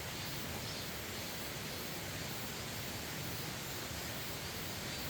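Steady, even rushing of a mountain stream flowing past the cabin.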